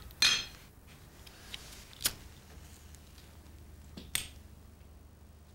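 A cigarette being lit: a sharp strike with a short hiss about a quarter second in, followed by two single sharp clicks about two seconds apart.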